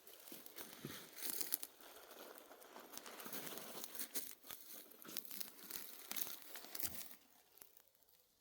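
Close rustling and crackling, dense and uneven, that stops about seven seconds in.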